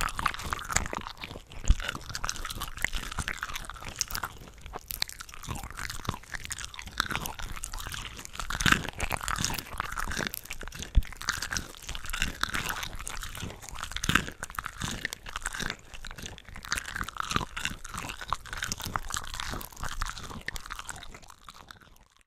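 Close-miked chewing and biting of shrimp from a shrimp cocktail platter, wet snappy crunches and mouth sounds layered several tracks deep, cutting off just before the end.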